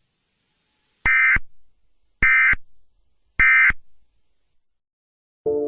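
Three short bursts of EAS/SAME digital data tones, each a fraction of a second long and about a second apart: the end-of-message signal that closes an Emergency Alert System broadcast. Music starts just before the end.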